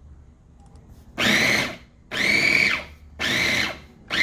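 Cuisinart Elemental 4-cup chopper/grinder's motor and blade run in short pulses as the button is pressed and released. There are four whirring bursts of about half a second each, the last just starting at the end, each dipping in pitch as it spins down.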